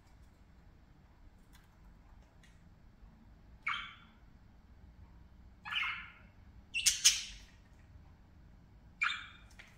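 Pet budgerigars giving five short, harsh squawks, the loudest a quick pair about seven seconds in, after a few faint ticks.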